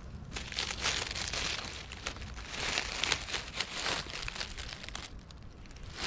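Dry fallen leaves crackling and rustling close up as a hand works in the leaf litter to pick a morel mushroom, dying down about five seconds in.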